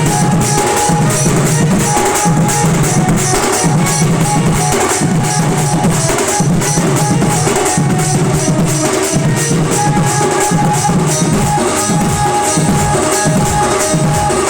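Sambalpuri band party playing an instrumental tune: loud drums keeping a steady beat under a held melody line.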